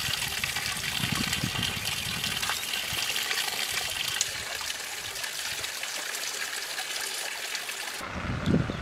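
A small stream running over rocks: a steady rushing hiss that cuts off suddenly near the end, giving way to a low rumble.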